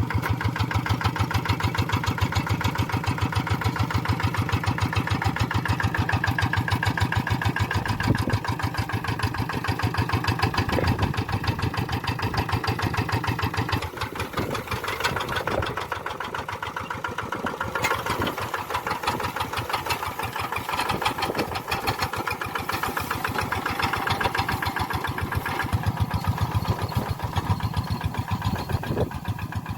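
Tractor engine running with a rapid, even beat of firing pulses. About 14 seconds in it gets slightly quieter and thinner in the low end, then fills out again near 26 seconds.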